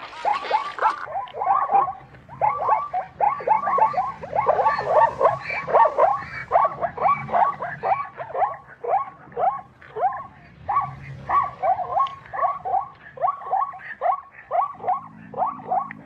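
Zebra calling: a long run of short barking yips, several a second, each dropping in pitch, with brief pauses between the bursts.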